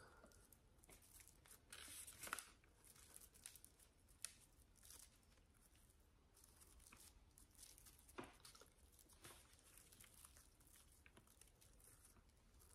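Faint rustling and crinkling of an artificial pine tree's gold-glittered plastic branches being bent into shape by hand, a little louder about two seconds in and again near eight seconds.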